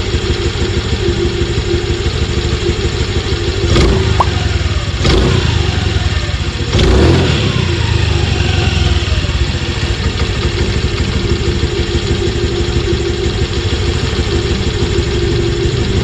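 Honda Dio 2021 scooter's small single-cylinder four-stroke engine idling steadily, blipped three times in quick succession about a quarter of the way in, each rev falling back to idle.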